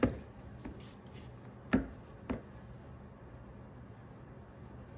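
A metal utensil knocking and scraping against a stainless steel mixing bowl while stiff cookie dough is worked and scooped: three short knocks, one right at the start and two close together a little under halfway through, with quiet scraping between.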